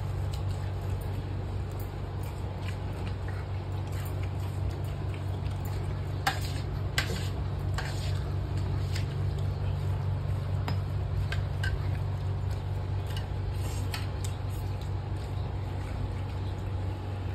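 Eating by hand: fingers mixing rice and chicken curry on leaf plates, with soft wet squishing and scattered light clicks, a few sharper ones about six to eight seconds in. A steady low hum runs underneath.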